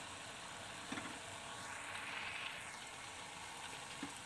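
Pork cooking without oil in a steel pot on a gas burner, its liquid bubbling and sizzling with a steady hiss. A spoon taps lightly once or twice.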